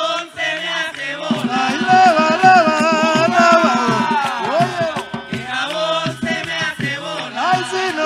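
Live bullerengue sentao music: hand drums under voices singing long, wavering notes. From about a second in a fast run of drum strokes, about seven a second, lasts a few seconds.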